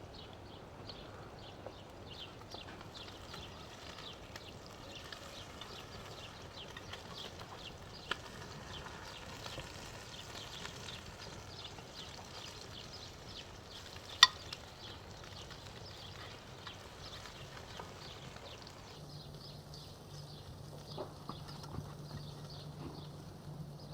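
Small-fish patties sizzling and spattering in hot oil in a frying pan over an open fire, a dense fine crackle. About fourteen seconds in there is a single sharp click, the loudest sound. Near the end a steady low hum comes in.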